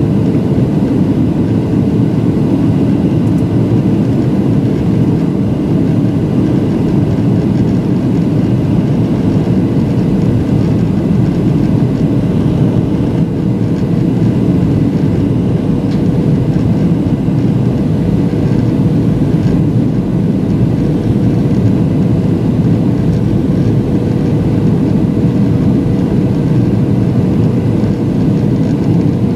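Steady cabin noise of a jet airliner in flight, heard from a window seat: the rumble of the engines and rushing air, with a faint steady hum.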